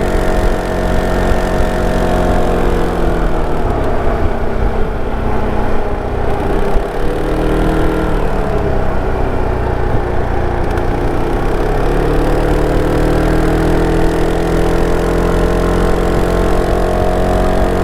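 SYM Cruisym 300 scooter's single-cylinder engine running through its stock exhaust. Its pitch drops a few seconds in and climbs back up around twelve seconds in, then holds steady.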